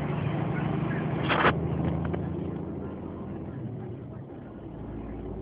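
Motor vehicle's engine droning steadily over road noise, heard from inside the cab while driving. There is a short hiss about a second and a half in, and the engine note eases off about halfway through.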